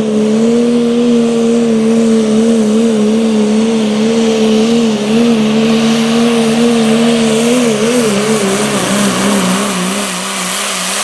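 Dodge Ram pickup's 5.9-litre Cummins diesel running at full throttle under the load of a pulling sled, its pitch high and steady. About eight seconds in the pitch wobbles and sags slightly, with a rising hiss from the tyres and turbo over the engine.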